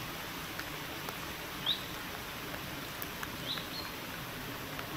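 Rain falling steadily on open pond water, an even hiss with scattered faint drop ticks. Two short high bird chirps come through it, about two seconds apart.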